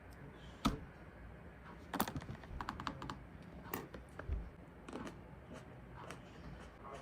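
Typing on a computer keyboard: scattered keystrokes, with a quick run of several about two seconds in, then sparse taps.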